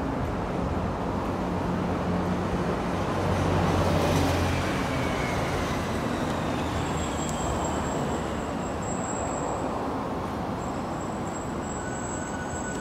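Road traffic on a busy city street: cars and trucks driving past in a continuous noise, with one vehicle passing louder about three to four seconds in.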